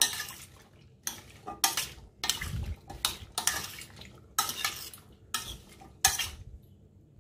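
A spoon stirring chopped Chinese potatoes (koorkka) in water in a stainless steel pot, scraping and clinking against the pot's sides in about ten irregular strokes.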